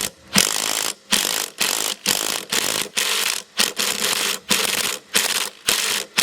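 Ratchet wrench tightening the nut that holds a lawn mower blade, in rapid back-and-forth rasping strokes about two a second.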